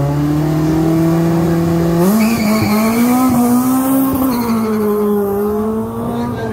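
Small hatchback race car's engine held at steady high revs on the start line, then the car launching about two seconds in with a burst of tyre squeal. The engine note rises and then drops as the car pulls away.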